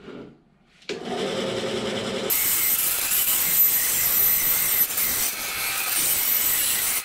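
A bandsaw starts up about a second in and runs with a hum. From about two seconds in, its blade cuts through a strip of aluminum with a steady, high-pitched hiss.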